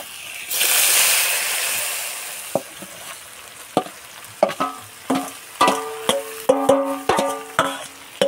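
Soaked red lentils hitting hot oil in a kadai with a loud sizzle that fades over a couple of seconds. Then a metal spatula scrapes and knocks against the steel bowl and the pan, the bowl ringing with each knock.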